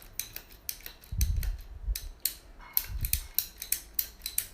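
Hand-operated ratchet cable cutter being worked: its pawl and ratchet click in quick, irregular runs as the handle is pumped, with a few dull knocks from the handle strokes.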